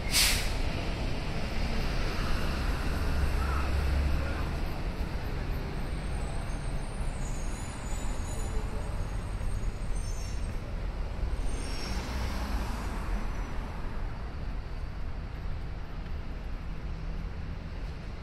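City street traffic: a steady low rumble of passing vehicles, with a sharp brief hiss right at the start and a fainter one about twelve seconds in.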